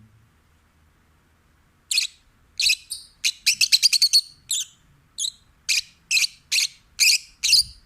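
Peach-faced lovebird chirping: sharp, high chirps begin about two seconds in, come in a quick run, then continue as single chirps about twice a second.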